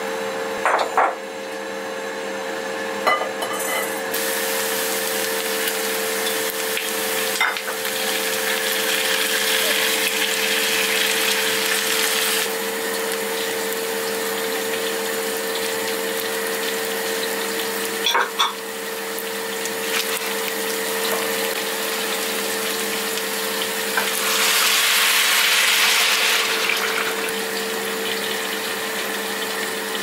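Steady hum of a kitchen motor with a hiss over it that swells twice, and a few sharp clicks of utensils.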